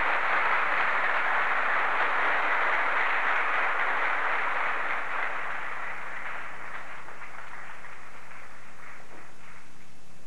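Audience applauding, thinning out over the second half into scattered single claps.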